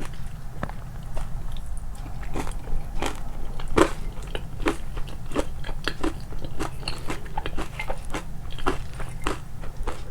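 Close-miked chewing of crunchy food, with sharp, irregular crunches about two or three a second.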